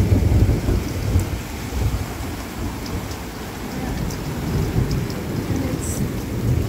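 Heavy thunderstorm downpour: a steady rain hiss over a deep rumble, loudest in the first second.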